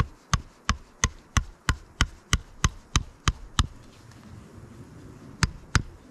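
A quick run of about a dozen sharp blows, evenly spaced at roughly three a second, like a hatchet or mallet striking wood. After a pause of almost two seconds come two more blows close together.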